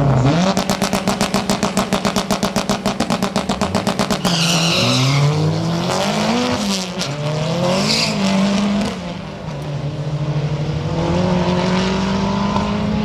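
Drag car engine held against a launch rev limiter at the start line, stuttering about a dozen times a second. About four seconds in it launches: the revs climb with a brief squeal, drop twice at gear shifts, and the engine settles to a steadier drone as it runs away down the strip.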